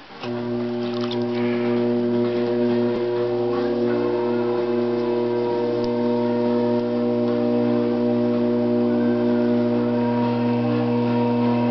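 A loud, steady hum of several held tones, like an electric motor running, that starts abruptly just after the opening, with a brief shift in pitch about three and a half seconds in.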